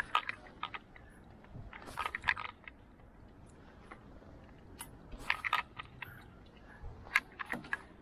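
Hard clicking and clattering in four short clusters, from crabs and crab-trap gear being handled.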